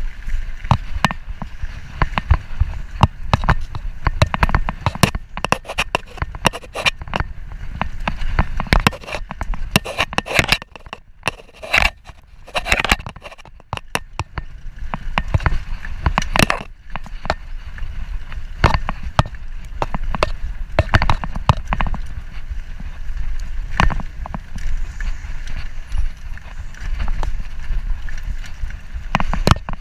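Mountain bike ridden fast over a dirt and gravel singletrack: tyres rolling on the trail and frequent sharp rattles and knocks as the bike jolts over bumps, over a steady low rumble.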